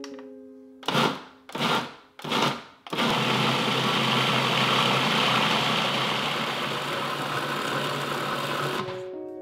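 Food processor motor blending hummus: three short pulses, then a steady run of about six seconds with a low hum under it.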